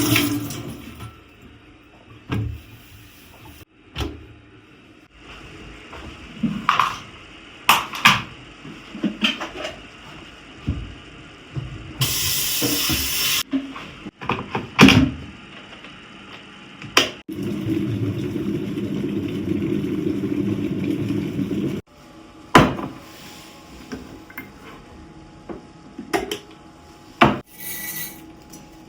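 Household items, dishes and wooden things, being handled and set down: scattered knocks and clinks, a short hiss about twelve seconds in, and a steady rushing for several seconds a little past the middle.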